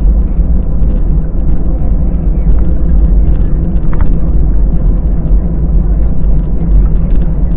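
Airbus A320 taxiing, heard from inside the cabin: a loud, steady low rumble of the engines at low taxi power and the wheels rolling on the taxiway, with a faint steady hum above it.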